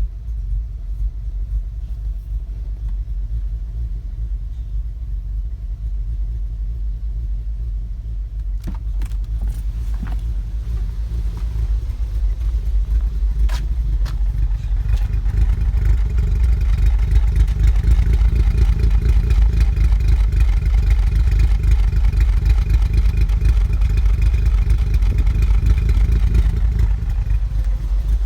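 2015 VW Golf R's turbocharged 2.0-litre four-cylinder idling roughly, with a low uneven rumble that sounds like it's about to stall. A few sharp clicks come near the middle. From about halfway it runs a little louder with a higher hum on top. The rough idle was later cured by carbon cleaning of the intake.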